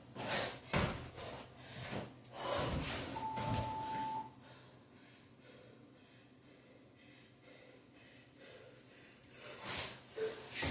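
Hard, heavy breathing with thuds of landings from jumping for the first few seconds, and a long electronic beep about three seconds in, typical of a workout interval timer. Then a quieter spell until breathing picks up again near the end, together with a short, lower beep.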